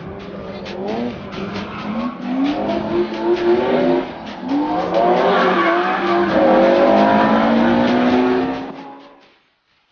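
Drift cars sliding through a corner, their engines revving up and down over tyre squeal. The sound is loudest in the second half and fades out near the end.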